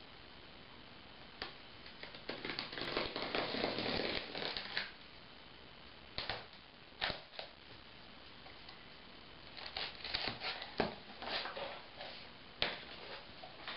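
A cardboard shipping box being opened: a blade drawn along the packing tape with a scraping rasp for a couple of seconds, a few sharp knocks, then the cardboard flaps pulled open with quick scrapes, clicks and rustling near the end.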